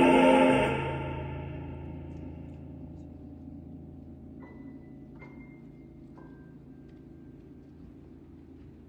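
A male vocal group's held chord, sung with vibrato, stops about half a second in. Then a low sustained keyboard chord fades slowly, with three soft, high, ringing chime notes entering one after another near the middle.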